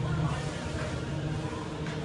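Homemade stair lift's 12 V DC motor running steadily, a continuous drone as the chair climbs the stairs.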